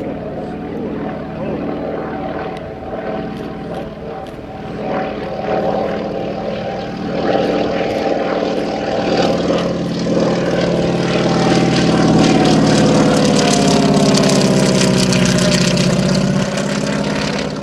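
Vultee SNV-1 (BT-13 Valiant) trainer with its Pratt & Whitney R-985 nine-cylinder radial engine and propeller, running in flight. The steady drone grows louder as the plane approaches, is loudest in the last few seconds, and falls slightly in pitch as it passes.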